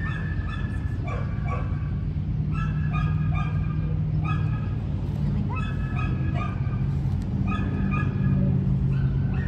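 A dog whining and yipping in short, high-pitched cries, two or three at a time, every second or two, over a steady low hum.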